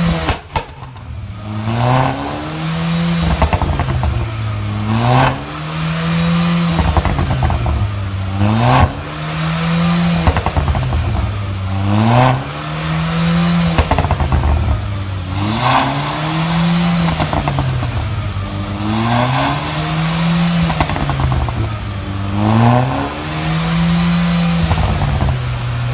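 Mercedes A-Class engine with a valved exhaust, revved again and again, about once every three and a half seconds, its pitch rising and falling each time. Each rev carries a short crackle of exhaust pops.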